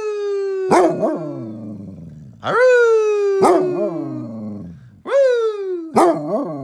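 Basset hound howling: a run of long, drawn-out howls, each starting sharply and then sliding slowly down in pitch.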